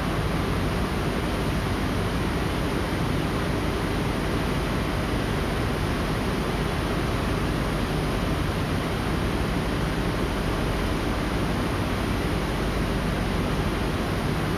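Steady, unchanging noise like a hiss, with a faint low hum underneath and no distinct knocks or events.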